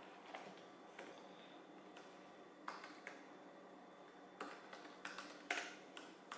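Typing on a laptop keyboard: soft, uneven key clicks, a few scattered at first, then a quick run of keystrokes over the last two seconds.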